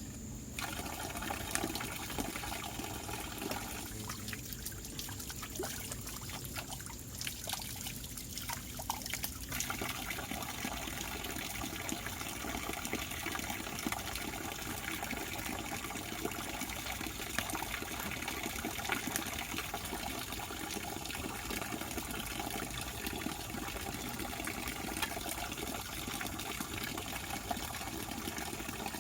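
Water trickling and splashing steadily, with many small drips and spatters, easing in the middle range for a few seconds near the start.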